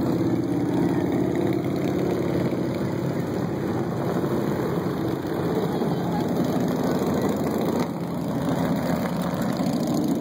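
Motorcycle engines running together in a steady, dense rumble, easing slightly about eight seconds in.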